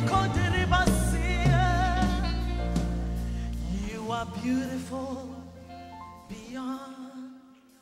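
A woman sings a slow gospel worship song into a microphone, her voice wavering with vibrato, over sustained instrumental accompaniment. The low accompaniment drops out about halfway, and the music fades almost to silence near the end.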